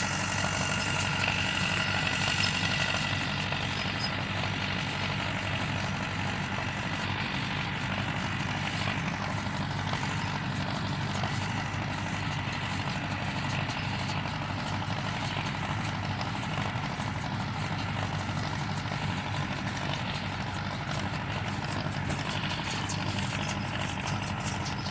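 Tractor engine running steadily, with a higher whine over the first few seconds that fades away.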